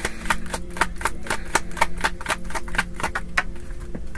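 Tarot deck being shuffled in the hands: a quick run of card snaps, about five or six a second, that stops about three and a half seconds in.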